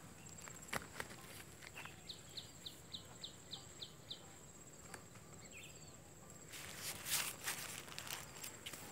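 Outdoor ambience: a bird gives a quick run of about eight short chirps, each falling in pitch, over a steady high insect whine. Near the end there is the louder rustle of someone stepping and shifting in tall grass, with a few light clicks earlier on.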